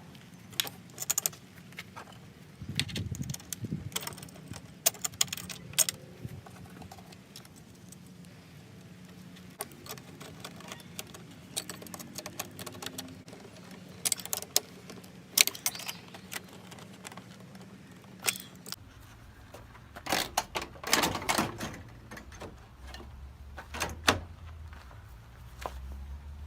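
Scattered metallic clinks and clatter of bolts, washers and hand tools being handled while bolting an air horn in place.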